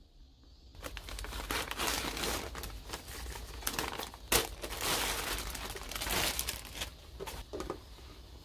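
Irregular crinkling and rustling, as of a wrapper or packaging being handled, starting about a second in and dying down near the end.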